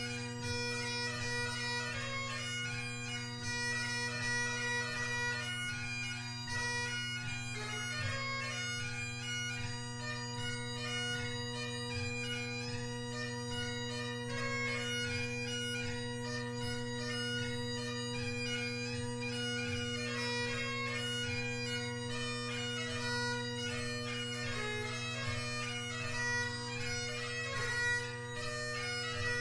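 Great Highland bagpipe playing a lively tune: McCallum drones hold a steady bass and tenor drone under a G1 blackwood chanter running the melody with quick gracenote-ornamented notes.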